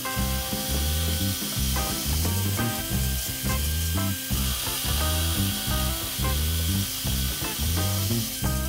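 Background music with a steady beat and bass line, over the steady hiss of a belt sander as a curved pine piece is pressed against the running belt.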